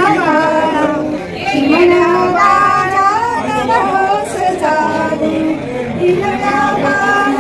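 Women's voices singing a Marathi lullaby (cradle song) in long held, slowly moving notes, with music behind it.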